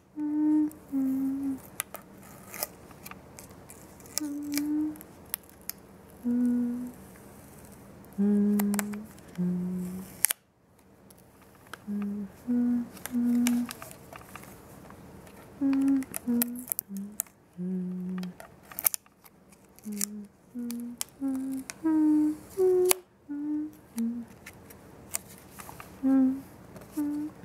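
A person humming a slow tune note by note, mixed with scattered sharp clicks from the camcorder's zoom and autofocus motor hunting for focus. The sound drops out briefly twice.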